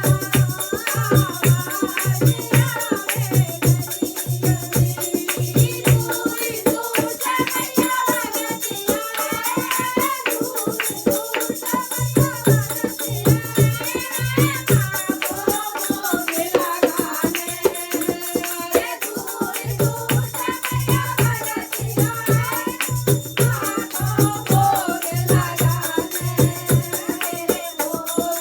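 Hindi devotional bhajan music: a sung melody over a steady low drum beat and jingling tambourine-like percussion.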